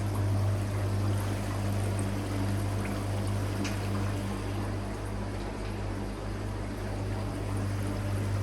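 Water pouring and trickling through a koi pond filtration system, over a steady low hum from the running pumps.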